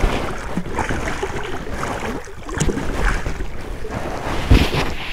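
Irregular water splashing from a hooked wels catfish thrashing at the surface beside the boat on a tight line, with a louder thump near the end.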